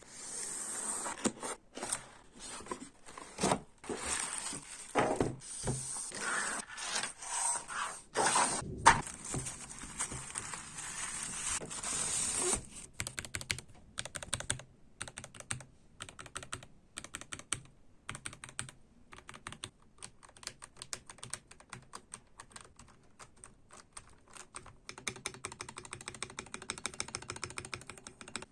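Rustling and handling noises with a few louder knocks, typical of a keyboard being unpacked. About twelve seconds in these give way to fast, steady typing on an Ardor Gaming Patron mechanical keyboard with Gateron Yellow Pro linear switches, a quick run of key clicks.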